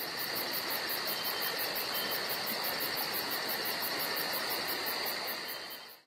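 Steady insect trilling, one continuous high trill with a quick pulsing chirp of about six beats a second above it, fading out near the end.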